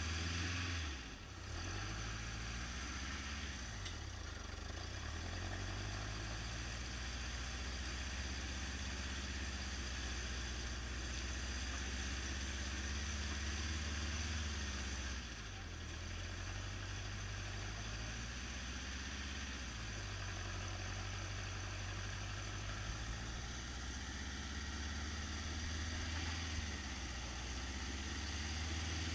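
Toyota pickup's engine running at low revs as the truck crawls over a boulder, the revs dropping and picking up again a few times.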